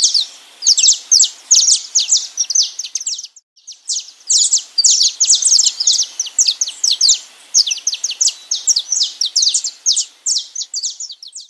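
Many small songbirds chirping and singing, a rapid, dense run of short high chirps. A brief break about three and a half seconds in, then the chirping resumes and stops abruptly at the end.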